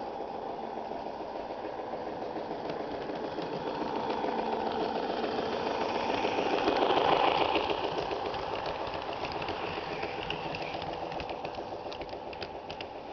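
Model Nickel Plate Road 765 Berkshire steam locomotive with onboard sound, chuffing steadily as it pulls a short freight train past. It is loudest as the engine goes by about seven seconds in, then fades under the rumble and a few sharp clicks of the following freight cars on the track.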